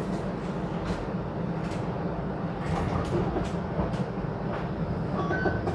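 Streetcar running on its rails, heard from inside the car: a steady low rumble with occasional short clicks and knocks from the track.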